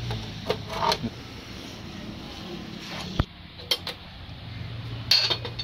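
Scattered metallic clicks and clinks of hand tools and parts as a Denso 2KD common-rail injector is worked in a bench vise, with a sharp click about three seconds in and a ringing clink near the end.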